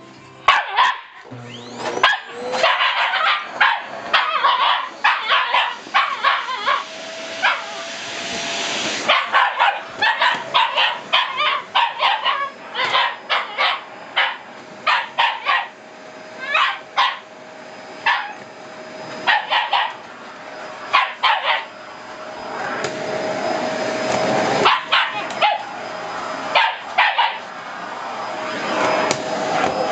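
Dog barking over and over, in quick runs of sharp barks, while a vacuum cleaner runs; the vacuum's steady hum swells louder a couple of times.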